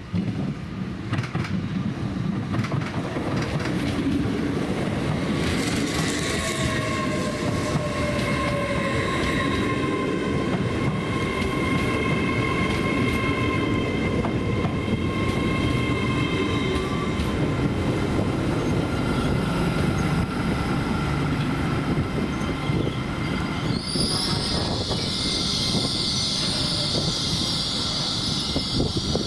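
Hull Trains Class 802 Paragon bi-mode train running in along the platform with a heavy rumble, braking to a stop with several steady high squealing tones from its wheels and brakes. Near the end a steady high hiss starts.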